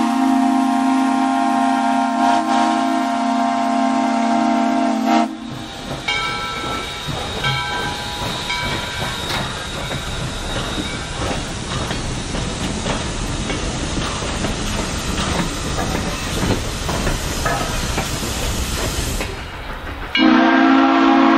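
A steam locomotive's chime whistle blows one long, steady chord that cuts off about five seconds in. Two double-headed steam locomotives, one of them ex-Southern 2-8-0 No. 630, then pass close by with a rough rumble and hissing steam. Near the end a steam whistle sounds again.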